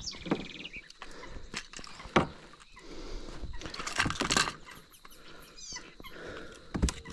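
Irregular knocks, clicks and rustles of handling as a baited fishing trap line with a hooked catfish is hauled in by hand, with a few faint high chirps about five seconds in.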